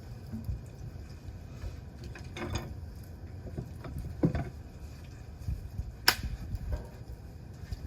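Wood campfire crackling, with a few sharp pops from the burning wood, the loudest about six seconds in, over a low steady rumble.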